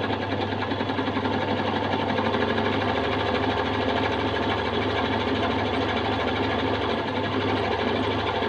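Usha Queen Stitch electric sewing machine running steadily at speed, its needle stitching an embroidery-style decorative stitch through cloth.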